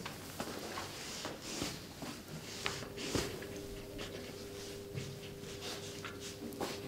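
Faint rustling and scratching, from a leg being moved on a bedsheet and a pen writing on paper, over a steady faint hum that grows clearer about three seconds in.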